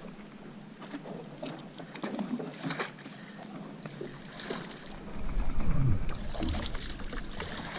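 Water splashing as a hooked summer flounder (fluke) thrashes at the surface beside the boat, with a couple of short sharp splashes. A louder low rumble comes in about five seconds in.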